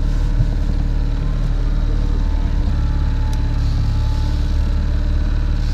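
Boat's outboard motor running steadily at trolling speed, a low, even drone.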